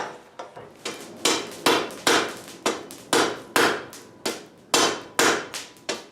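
Hand hammer striking a folded steel bar in steady repeated blows, about two a second, each with a short metallic ring, as the forge weld is tested; the fold has not welded and is about to come apart.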